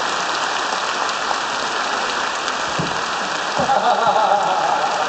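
Large audience applauding steadily, a dense even clatter of many hands, with a voice rising above the clapping near the end.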